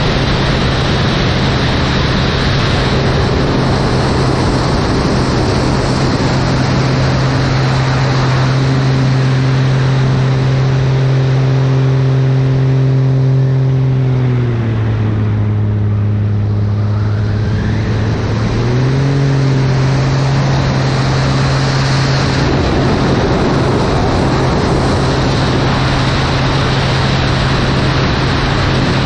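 Light aircraft's piston engine and propeller droning steadily under rushing wind noise. About halfway through, the engine note drops lower for a few seconds, then climbs back to its earlier pitch.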